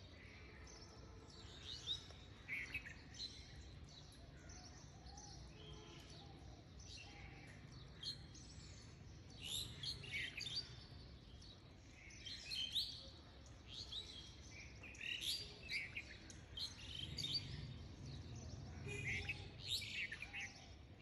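Small birds chirping with many short, quick chirps in scattered bunches, over a faint low hum.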